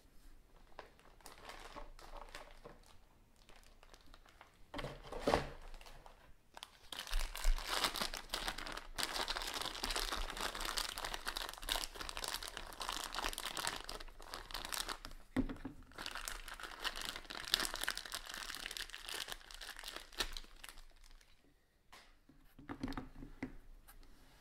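Thin plastic bag crinkling and rustling as it is handled and opened to take out a set of RC car tyres. The crinkling is densest and loudest through the middle, with lighter handling noises at the start and end.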